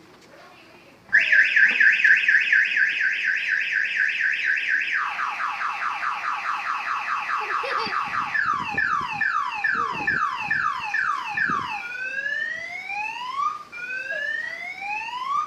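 Car alarm siren starting suddenly about a second in and cycling through its tone patterns: a fast warble, then a string of quick falling chirps, then slow rising whoops.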